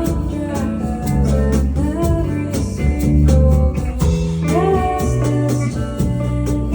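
Live acoustic band music: plucked guitar over bass with a steady beat, and a voice singing gliding, held notes.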